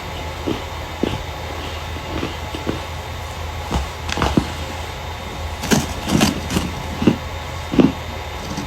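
Starch being crushed: a run of irregular, crisp crunches, thicker and louder in the second half, over a steady low hum.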